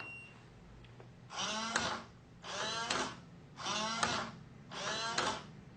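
Electronic keypad deadbolt's small motor driving the bolt, four short runs of under a second each, about a second apart. This is the lock setting its bolt direction.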